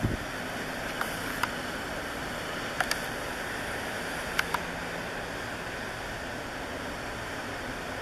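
Steady distant roar of fracking equipment on the well pad, with a few short sharp clicks scattered through it.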